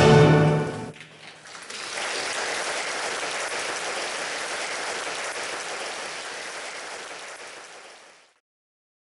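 Music ends on a held chord about a second in, and a theatre audience applauds, the applause slowly fading and then cutting off near the end.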